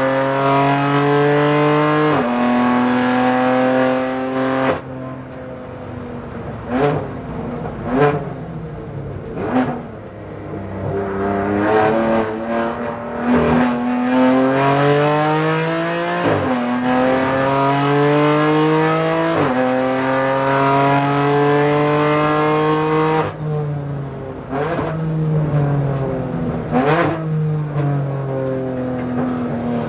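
BMW M4 GT4 race car's twin-turbo straight-six, heard from inside the cockpit at full load. It pulls hard with quick upshifts, then lifts off under braking with sharp throttle blips on each downshift from fourth down to second, around 5 to 14 seconds in and again around 23 to 27 seconds. Between the braking zones it accelerates through the gears with more upshifts.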